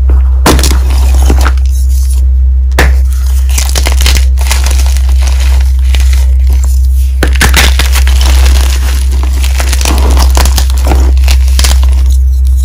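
Blocks of gym chalk being snapped and crushed by hand into loose chalk powder: sharp cracks as pieces break, with dense crunching and crumbling between them. A steady low hum runs underneath.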